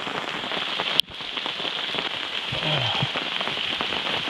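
Steady rain falling on the duct tape tarp of a hammock tent, heard from inside as a dense hiss of many small drop ticks. A single sharp click comes about a second in.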